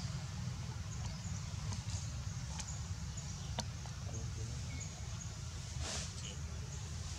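Outdoor ambience: a steady low rumble with faint, short, high chirps and a few soft clicks, and a brief swish about six seconds in.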